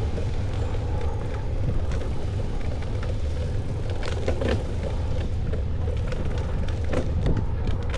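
Riding a bicycle: steady low wind rumble on the microphone over tyre and road noise, with a few light rattles about halfway and near the end.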